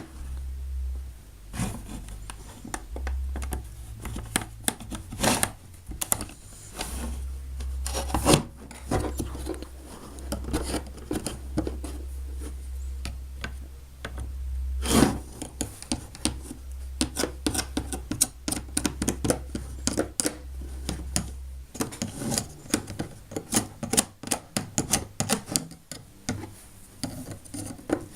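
Plastic Play-Doh tools and moulds being handled: irregular clicks, taps and rubbing of plastic on plastic and on the table, with a few louder knocks and a fast run of clicks near the end.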